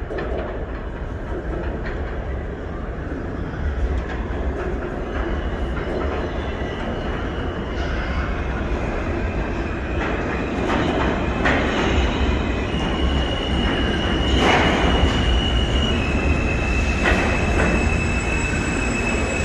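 R160 subway train approaching through the tunnel and entering the station, its rumble growing steadily louder. Clacks come over the rail joints, and in the second half there is a high, steady wheel squeal that shifts pitch slightly.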